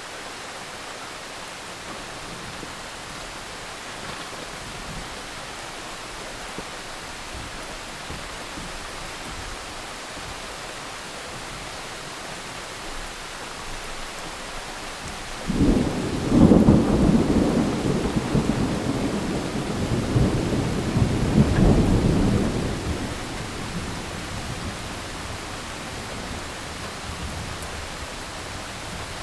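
Thunderstorm: steady rain hissing, with a clap of thunder breaking in suddenly about halfway through and rumbling for several seconds before fading back into the rain.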